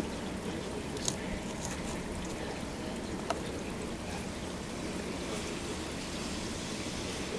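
Steady thunderstorm rain falling, a continuous even rush of water, with two faint clicks about one and three seconds in.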